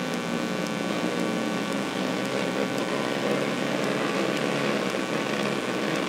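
Steady drone of racing engines running at low revs while the field circles at slow pace under a yellow-flag caution.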